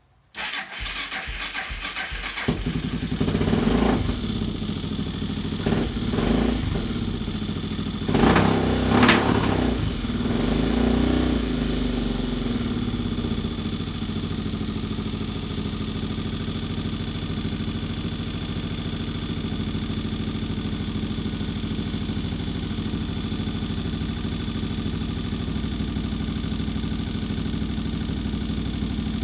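Rebuilt Suzuki DR650 single-cylinder four-stroke engine being started: it cranks over for about two seconds, catches, is revved a few times, then settles into a steady idle. The engine clicks, which the owner puts down to excess valve clearance from adjusting the valves on the wrong stroke.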